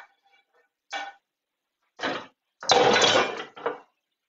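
Spatula knocking and scraping against a frying pan while sauce is served onto plates: two short knocks, then a longer, louder clatter of spatula and pan about three seconds in, and a last knock.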